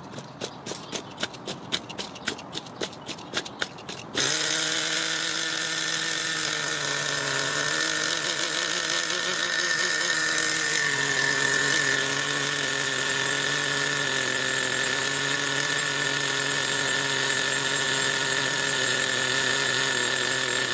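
A run of light, evenly spaced clicks, then about four seconds in a small O.S. nitro glow engine in an RC monster truck catches suddenly and runs steadily at idle, its pitch wavering briefly before settling.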